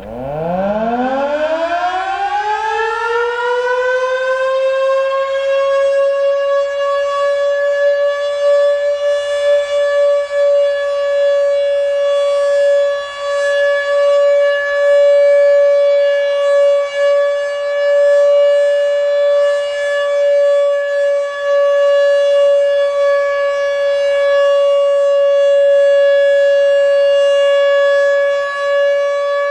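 Fedelcode dual-rotor Mach 5 outdoor warning siren winding up from a low growl to a steady wail over about six seconds, then holding its full-alert steady tone with slight wavers in loudness. The tone signals a full alert. The siren is running a bit sluggish, which the owner thinks keeps it from being very loud.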